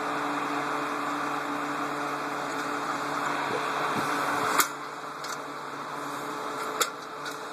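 Fan of a 1950s–60s Montgomery Ward electric heater running on its fan-only setting: a steady whir with a low motor hum, from a rebuilt and freshly oiled motor. A sharp click comes about four and a half seconds in, after which the whir is slightly quieter, and a fainter click follows about two seconds later.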